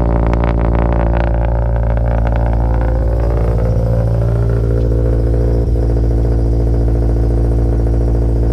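Subaru BRZ's flat-four engine running with a steady low hum, its note rising a few seconds in as the car picks up speed.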